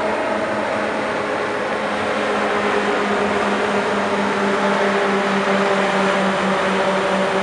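Diesel-electric locomotive of a commuter train running with a steady droning hum as it passes, over a haze of street traffic noise.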